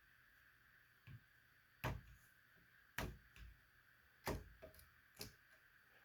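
Several faint, sharp clicks and knocks at uneven intervals, over a faint steady high-pitched tone.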